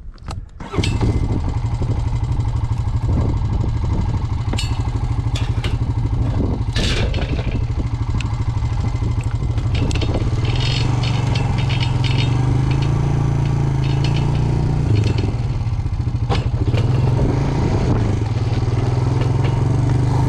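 A farm vehicle's engine running steadily as it drives over rough ground, with scattered clatter and knocks from the vehicle and its load.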